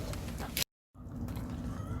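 A dog eating sticky rice cake (tteok): soft wet mouth and chewing sounds over a steady low hum, broken by a brief total dropout under a second in.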